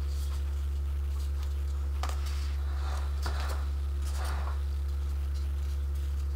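A steady low electrical hum, with soft rustles and light taps between about two and four and a half seconds in as hands press an edible sheet around a doll cake's bodice.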